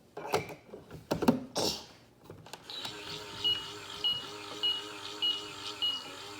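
A few clicks and knocks of handling, then about three seconds in a toy microwave starts its cooking cycle. It gives a steady electronic hum with a short high beep about twice a second.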